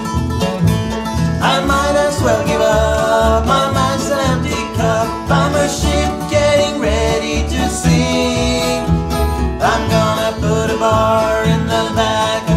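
Bluegrass band playing: acoustic guitar and mandolin over a double bass keeping a steady plucked pulse.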